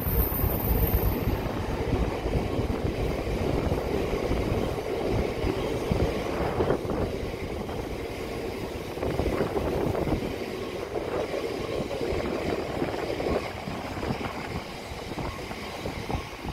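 Freight train of bogie box wagons rolling past on the rails: a steady rumble of wheels on track with irregular knocks, slowly fading as the train draws away.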